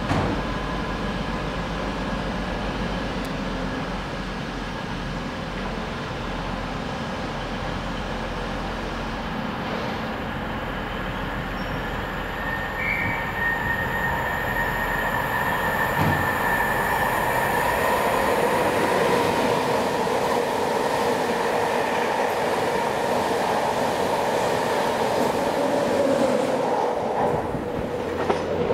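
LNER Intercity 225 passenger train running along the rails: a steady rumble of wheels on track, with thin high-pitched wheel-squeal tones over it. The sound grows louder about two-thirds of the way in as the train comes closer.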